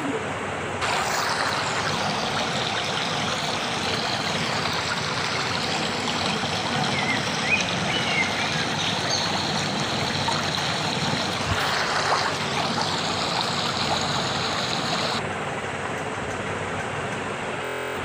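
Rushing water of a shallow stream running over rocks: a steady hiss that turns fuller and brighter about a second in and softens again near the end.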